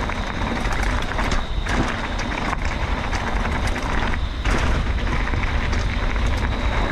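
Steady rushing noise of a bicycle ride on a dirt trail, from wind on the microphone and tyres on rough ground, with many small clicks and rattles.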